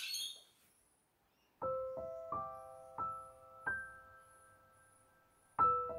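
Gentle piano melody of slow single notes, each struck and left ringing out, coming in about a second and a half in after a brief high ringing sound fades at the very start.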